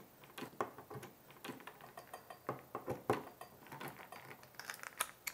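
Hex driver loosening the screws of a stepper motor's 3D-printed mount: small metallic clicks and ticks at uneven intervals as the tool seats in and turns the screw heads.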